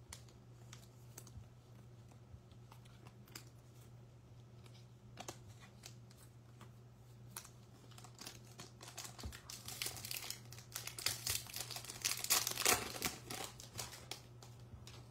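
Foil wrapper of a Topps Chrome baseball card pack being torn open and crinkled, loudest about ten to thirteen seconds in. Before that, faint scattered clicks from cards being handled.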